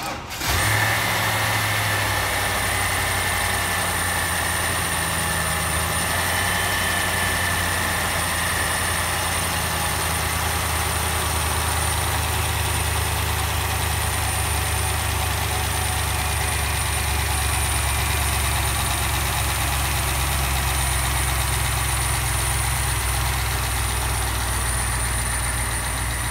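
BMW M62 V8 engine catching about half a second in on a test start after its camshaft timing was set, then idling steadily.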